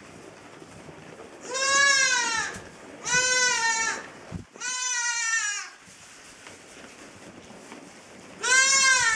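Newborn Cameroon sheep lamb bleating: four high-pitched bleats, each about a second long, the last near the end.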